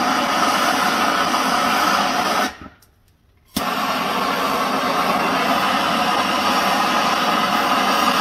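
Handheld butane torch flame hissing steadily while it heats a brass bullet-connector coupling on a motor lead to melt the solder off. The hiss dies away about two and a half seconds in, then comes back at once with a sharp click about a second later.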